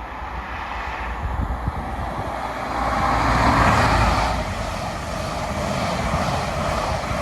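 CrossCountry high-speed train passing: Class 43 power car diesel engine running under power with wheel-and-rail noise, a steady low hum under a wide rushing noise that swells to its loudest about three to four seconds in.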